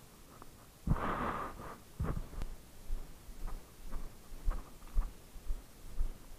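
Footsteps on a leaf-strewn path picked up by a body-worn action camera, soft thuds about twice a second, after a short swishing rustle about a second in.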